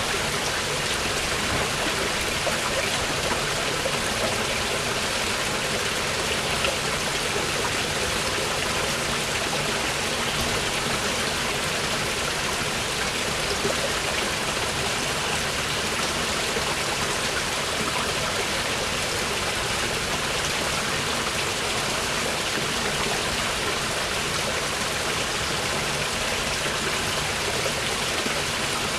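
Mountain river rushing steadily over rocks, a continuous, even roar of flowing water.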